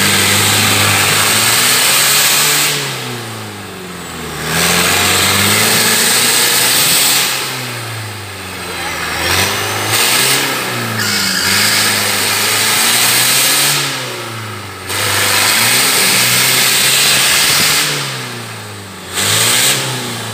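Off-road buggy's engine revved hard again and again as it claws through a deep mud hole with its wheels spinning. The revs rise and fall in about four long surges.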